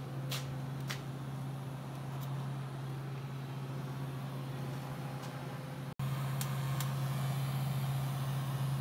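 Steady low electrical hum of a MIG welder at work, with a few sharp clicks. It drops out for an instant about six seconds in and comes back louder.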